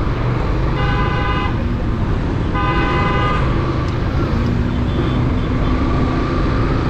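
A vehicle horn honks twice, each blast well under a second, over the steady rumble of a motorcycle riding through traffic.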